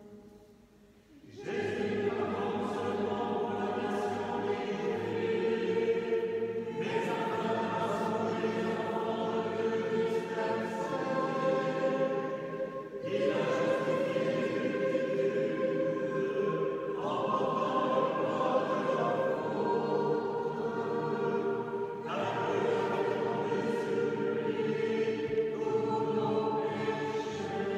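Choir singing a slow hymn in long held phrases. The singing starts about a second and a half in, after a short hush, and new phrases begin every few seconds.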